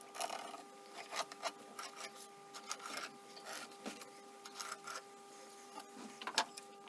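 Pencil scratching along the edge of a curved template as it is traced onto a wooden plank, in short irregular strokes, with a sharper knock near the end.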